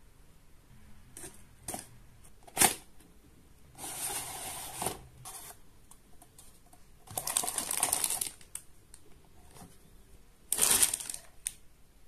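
A cardboard toy box being opened and unpacked: one sharp snap, then three stretches of scraping and rustling as cardboard slides against cardboard while the inner tray is drawn out.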